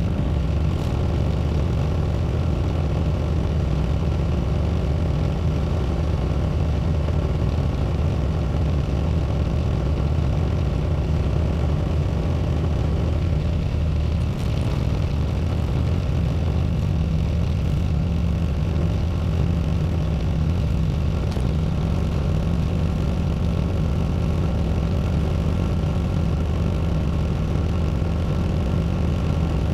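Small tractor engine running steadily at an even speed while plowing snow.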